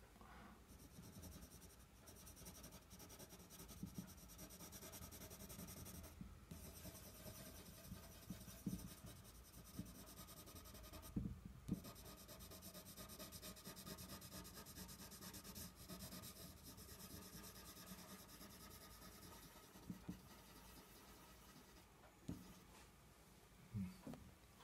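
Faint scratching and rubbing of a coloured pencil worked over paper, laying down another layer of colour, with a few soft knocks along the way.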